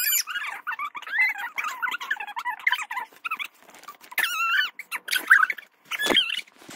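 A young child's high-pitched squeals and giggles, on and off, with a louder squeal about four seconds in, and a bump near the end.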